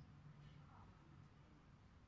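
Near silence: faint background ambience with a steady low hum.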